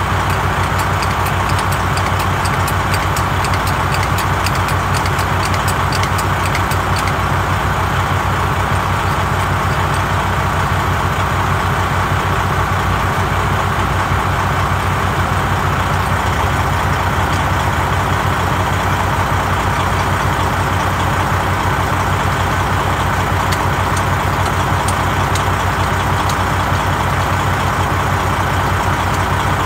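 An engine idling steadily, with faint rapid ticking over the first several seconds.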